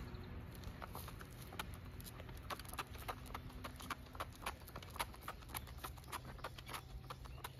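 A small dog's boots tapping on asphalt as it trots: a quick, uneven patter of light clicks, several a second.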